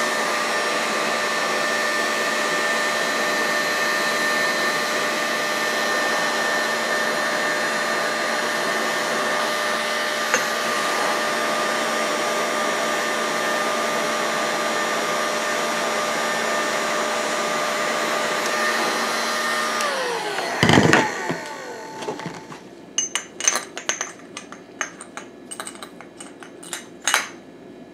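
Electric heat gun blowing steadily on an RC engine's crankcase, heating the main bearing bore so that it expands for the new bearing. After about 20 s it is switched off and its fan winds down with a falling hum. A loud knock and a run of light clicks and taps follow as the hot case and bearing parts are handled.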